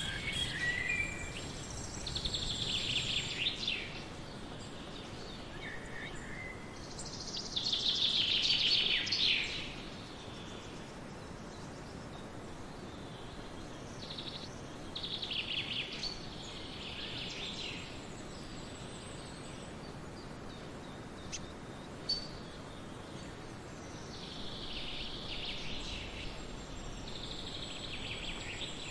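Outdoor ambience with birds chirping in several bursts of rapid, high trills over a steady background hiss. A single sharp click about 22 seconds in.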